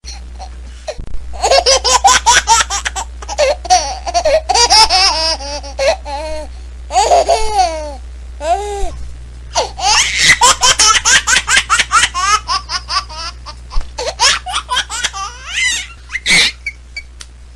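A baby laughing hard, in runs of quick, high-pitched laughs and squeals.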